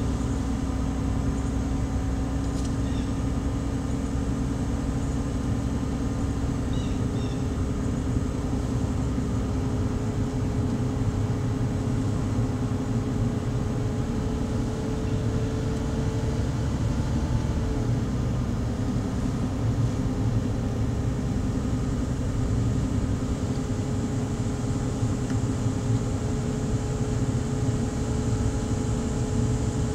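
Car engine and tyre noise heard from inside the moving car: a steady low drone with a faint engine hum whose pitch shifts slightly about halfway through.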